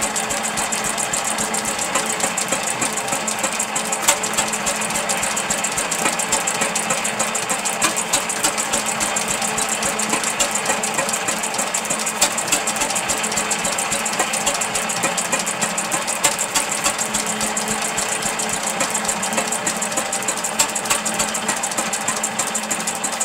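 Restored Guyot type C stationary engine running steadily, with a rapid, even knocking beat.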